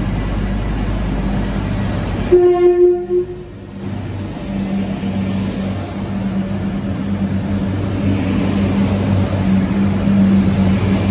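Diesel engines of a Class 175 diesel multiple unit droning as it runs slowly into the platform. A little over two seconds in, a single horn blast of about a second; the engine drone then builds again as the coaches pass.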